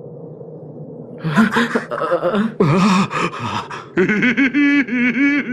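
An animated character's deep male voice laughing and grunting, without words, over a low steady background hum. It starts about a second in and breaks into a quick pulsing laugh near the end.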